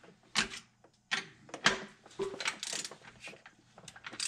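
Torque wrench and socket being worked on the main bearing cap bolts of a tractor engine, tightened toward 115 lb: a string of irregular sharp metallic clicks and knocks.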